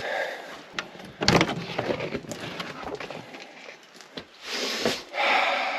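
Scattered knocks and creaks of old wood, with a longer scraping rush starting about four and a half seconds in.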